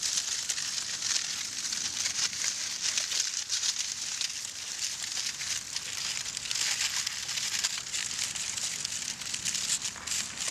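Aluminium foil being handled, crumpled and crinkled, a continuous dense crackle.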